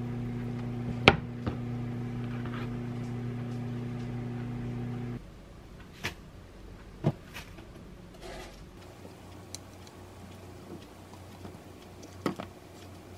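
A serrated knife cuts through a boiled egg and strikes the wooden cutting board with a sharp tap about a second in, over a steady low electrical hum that stops suddenly about five seconds in. After that, a few soft clicks and knocks come as salad greens and bell pepper strips are placed into a wooden bowl.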